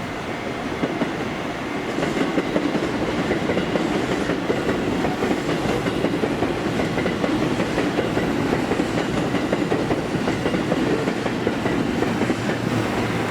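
JR Central 313 series electric multiple unit train running past, its wheels clattering steadily over the rail joints. It grows louder about two seconds in.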